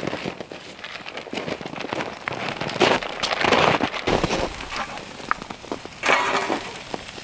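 Wood campfire crackling and popping under bear ribs and beef steaks sizzling on a grill grate. The hiss swells twice, about three seconds in and again near the end.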